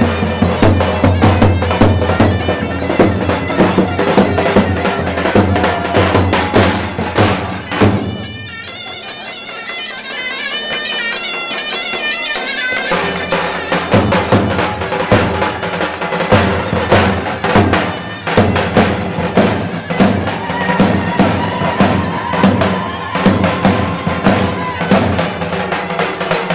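Loud traditional folk dance music: a davul bass drum beating a steady rhythm under a reedy, piercing wind melody. The drum drops out for a few seconds around the middle while the melody carries on, then comes back in.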